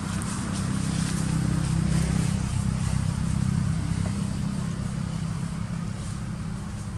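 A motor vehicle's engine passing by, a low hum that grows louder over the first two or three seconds and then slowly fades.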